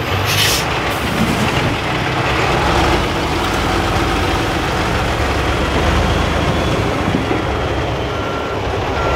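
Tatra 8x8 trial truck's diesel engine running as it works over rocky ground, with a short hiss about half a second in. Near the end its reversing beeper starts, beeping about once a second.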